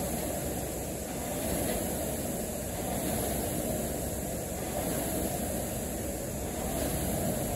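Rowing machine being rowed: its flywheel gives a steady whirring whoosh that swells a little with each stroke.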